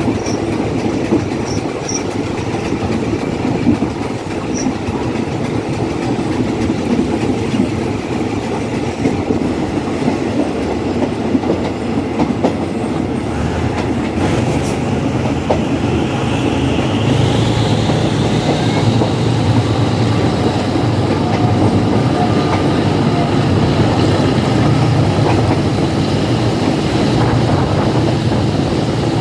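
Passenger train's wheels running over the rails, a steady rumble and clickety-clack heard through an open carriage window. About halfway through, a high whine rises and then holds as the running gets a little louder.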